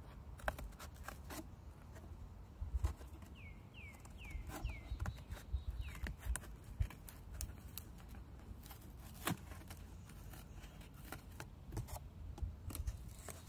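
Scissors cutting through cardboard, a series of irregular crisp snips.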